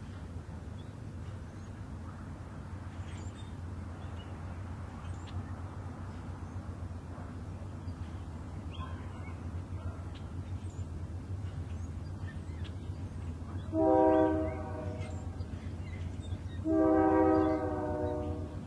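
Union Pacific diesel locomotive rumbling steadily as it approaches, then sounding its air horn in two blasts about three seconds apart, the second a little longer.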